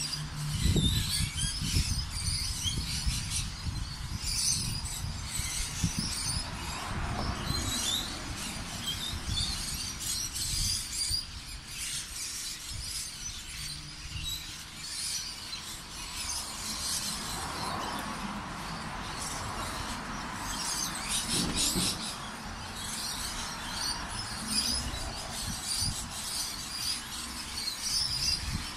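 Small birds chirping and twittering, many short high calls overlapping throughout, over a steady low rumble, with a broader swell of noise twice.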